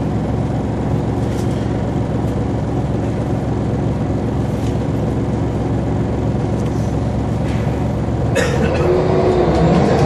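Diesel engine of a Scania L94UB bus drones steadily, heard from inside the saloon. About eight seconds in comes a sharp click, then a rising whine from the engine and ZF automatic gearbox as the bus accelerates.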